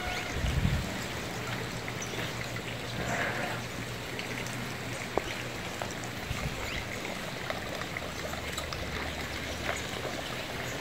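Water trickling steadily from a small garden fountain into its basin, with a brief low bump near the start.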